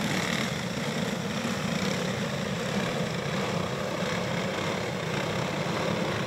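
A pack of dirt-track racing go-karts with small single-cylinder clone engines running at low speed together, a steady drone with no big revving, as they roll under caution ahead of a restart.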